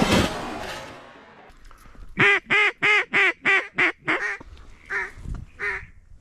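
Mallard hen quacks blown on a duck call: a fast, even run of about eight loud quacks about two seconds in, then three more spaced out near the end. A sharp loud sound at the very start fades away over about a second.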